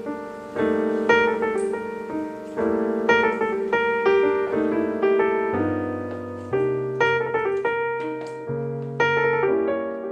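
Piano music: repeated struck chords, each ringing and fading, with deeper bass notes coming in about halfway through.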